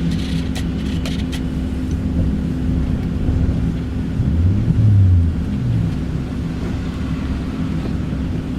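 Car engine and road noise heard from inside a moving car: a steady low hum, with the engine note briefly rising and falling about halfway through. A few light clicks sound near the start.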